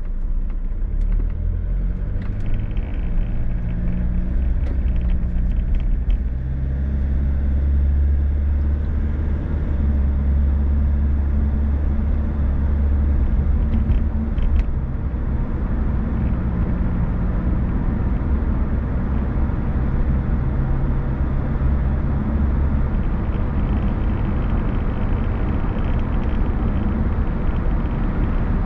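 A car driving, with a steady low engine hum and road rumble throughout. The engine note steps up and down in pitch a few times as the speed changes.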